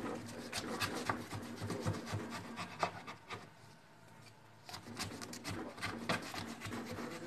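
Kitchen knife cutting and scraping through watermelon rind in many short strokes, with a pause of about a second near the middle.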